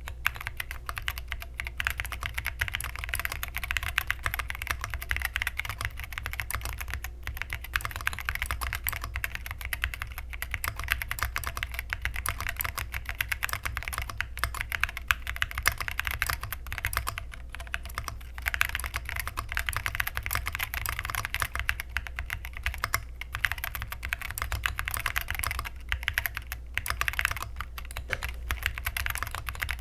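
Continuous fast typing on a 60% mechanical keyboard with TTC Silent Brown tactile switches, a PC plate, gasket mount and foam, and SA-profile double-shot keycaps. The keystrokes are muted clicks, with brief pauses here and there and a steady low hum underneath.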